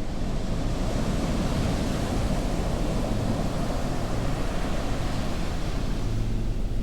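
Steady rushing, wind-like noise with a deep rumble underneath, a sound-effect soundscape.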